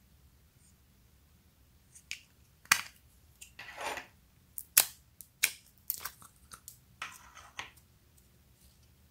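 Clear slime being handled in and pulled out of a green plastic mold. A run of sharp sticky pops and clicks begins about two seconds in, with one longer crackling stretch near the middle.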